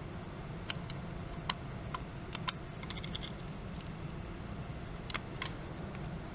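Irregular light metallic clicks and taps of hand tools working at the valves of an engine cylinder head during a valve stem seal change, about a dozen scattered clicks, over a steady low hum.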